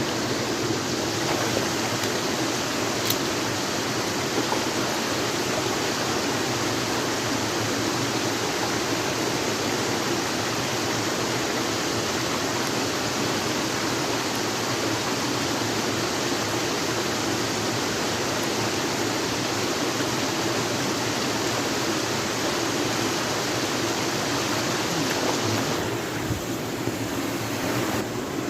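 River water rushing in a steady, even hiss, turning a little duller near the end.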